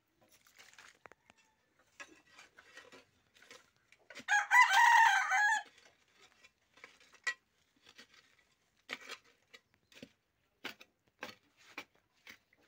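A rooster crows once, about four seconds in, for about a second and a half; it is the loudest sound. Around it come scattered short knocks of hoes chopping and scraping into soil.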